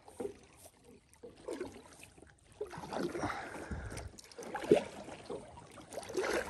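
Kayak paddle strokes in the water: a swish and splash about every second and a half, with one sharper, louder stroke about three-quarters of the way through.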